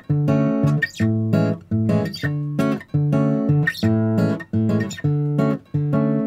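Background music: a guitar playing plucked chords in a steady rhythm.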